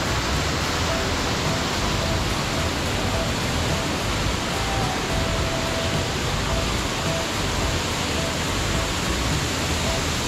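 Steady rush of falling water from a waterfall, an even, unbroken roar.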